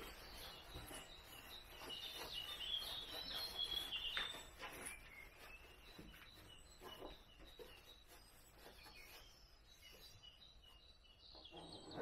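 Birds chirping and singing, busiest in the first four seconds or so. Soft rustling and handling noises come from a nylon down jacket being stuffed into its sack.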